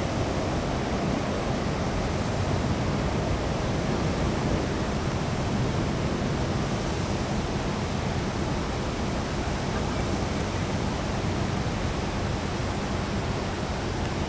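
Steady, even rushing noise of outdoor ambience, with no tones or distinct sounds in it.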